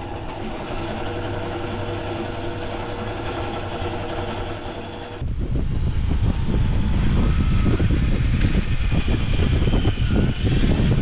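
A Toshiba sewing machine runs steadily with an even motor hum as it stitches binding onto PVC mesh. About five seconds in this gives way to heavy wind buffeting the microphone, under which a Parkside cordless drill gives a few short whirs.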